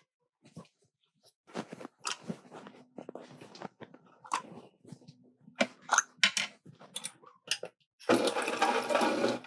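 Shake ingredients being put by hand into a Hurom M100 blender jar: scattered knocks and clicks, then about a second and a half of rushing, pouring sound near the end.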